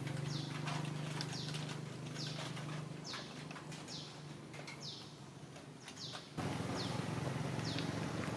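A bird calling over and over with short, high chirps that slide downward, one to two a second. Beneath it runs a low steady hum that fades through the middle and comes back suddenly about six seconds in.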